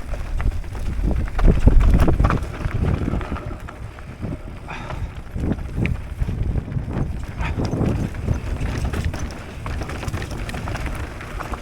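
Mountain bike riding down a rough trail: tyres and frame rattling over bumps with wind rumbling on the microphone, heaviest about two seconds in.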